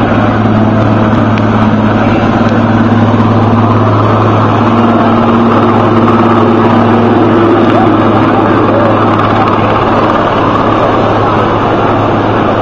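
Search-and-rescue helicopter flying, a loud, steady rotor and turbine noise with a constant low hum.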